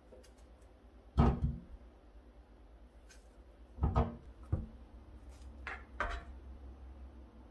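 Kitchen handling sounds at a stainless steel sink: colanders and a knife knocking against the steel, four dull knocks, the loudest about a second in, with light clicks between.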